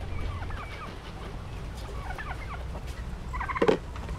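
Flock of poultry calling while feeding: many short high chirps and yelps, with one louder call about three and a half seconds in, over a steady low rumble.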